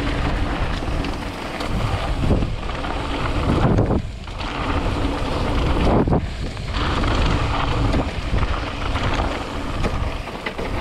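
Wind buffeting a moving camera's microphone during a fast mountain-bike descent, mixed with tyres rolling over a loose dirt trail. The rush eases briefly about four and six seconds in.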